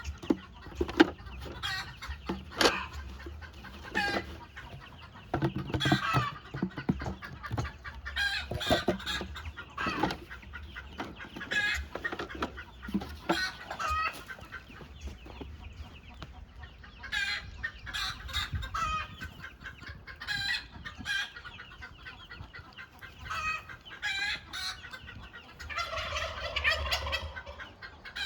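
Chickens clucking in a run of short, repeated calls, with a longer drawn-out call near the end, over a low steady rumble.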